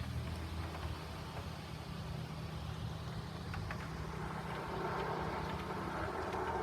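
A motor vehicle engine running steadily at idle. About four and a half seconds in, a second, higher-pitched engine sound grows louder, as of another vehicle drawing near.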